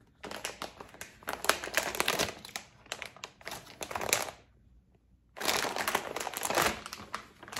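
Foil blind bag crinkling as it is torn open and handled to get the plush out. The crinkling comes in two spells, the first about four seconds long and the second about two, with a short pause between.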